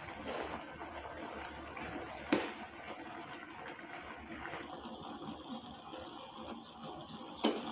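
Maggi noodles simmering wetly in a metal kadhai while a metal spatula stirs and scrapes through them. There are two sharp taps of the spatula against the pan, about two seconds in and near the end.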